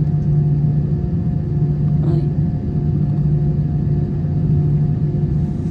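Jet airliner cabin noise while the plane taxis: a steady low hum and rumble from the engines and airframe, heard from inside the cabin.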